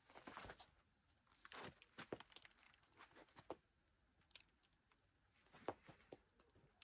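Faint scuffs and scrapes of climbing shoes and hands on a rock slab, with a few sharp clicks, the loudest near the end.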